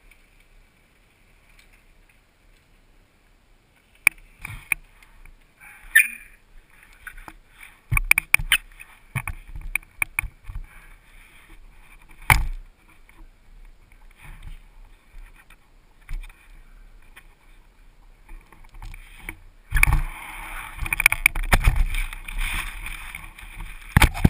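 Action camera being handled: scattered knocks and clicks, then, about twenty seconds in, close, louder scraping and rustling as a gloved hand grabs it at the lens.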